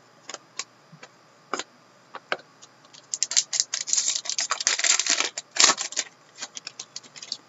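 Trading cards and a foil card-pack wrapper being handled: scattered clicks and taps of cards, then a dense crinkling crackle about three seconds in as the wrapper is torn and crumpled, thinning back to scattered clicks near the end.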